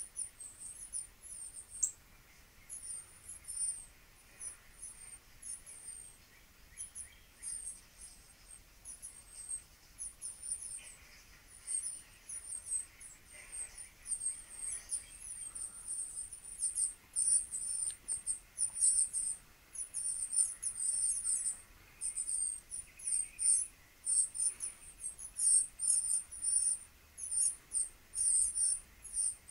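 Quick runs of very high-pitched chirps and twitters played through a tablet's small speaker, growing denser and louder over the second half.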